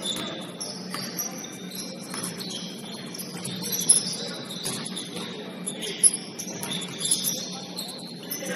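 Basketball shoes squeaking on a gym floor in many short high chirps as players move, with two sharp knocks about 4 and 6 seconds in.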